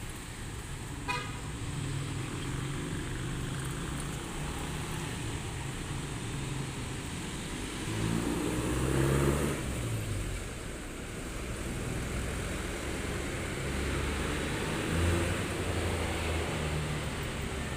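Road traffic: vehicle engines running steadily, with one vehicle louder for about two seconds some eight seconds in.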